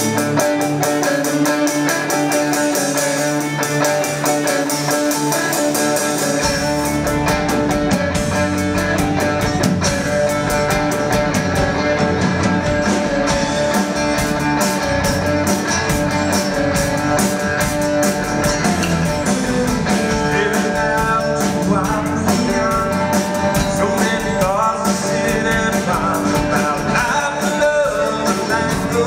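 Live band playing a guitar-led rock song: guitars alone at first, with bass and drums coming in about six seconds in. In the second half a man's voice sings over the band.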